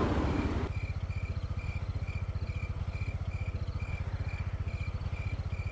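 Motorcycle engine idling with a steady fast low throb, crickets chirping about twice a second over it. A louder rush of noise cuts off abruptly just under a second in.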